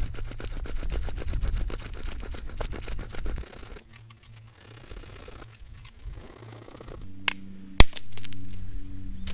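A stone edge scraping a wooden bow-drill fireboard in fast rasping strokes, cutting the pie-slice notch that lets air reach the ember; the scraping stops after about three and a half seconds. Near the end, two sharp clicks of stone knocking on stone, the second the loudest, over a steady low hum.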